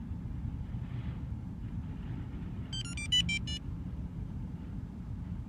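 Audi A4 engine idling steadily after a remote start. About three seconds in, a quick run of about half a dozen short electronic beeps stepping up and down in pitch.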